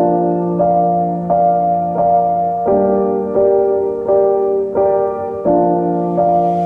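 Background piano music: gentle notes struck about every three-quarters of a second over a held bass note.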